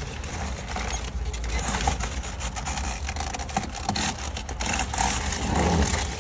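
Large cardboard flat-pack box scraping and knocking against a car's cargo area as it is pushed in, many short scrapes and bumps over a steady low rumble.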